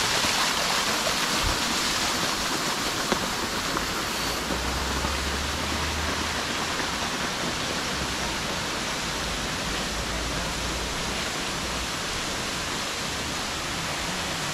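Steady hiss of rain and running water in the open. A low rumble comes in about four seconds in and fades out near the twelve-second mark.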